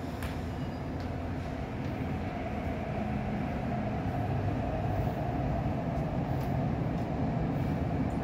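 MTR Tuen Ma line electric train pulling out of the station behind the platform screen doors. Its rumble builds over the first few seconds as it gathers speed, with a faint motor whine in the middle.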